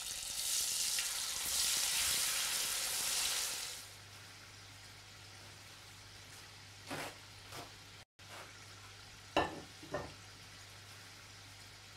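Par-boiled Maris Piper potato chips sizzling loudly as they go into a pan of hot oil. After about four seconds the sizzle drops to a quieter frying hiss with a steady low hum and a few light knocks.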